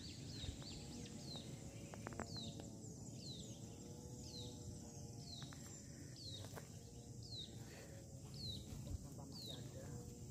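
A bird repeating a short, high chirp that slides downward, about once a second, over faint outdoor background noise.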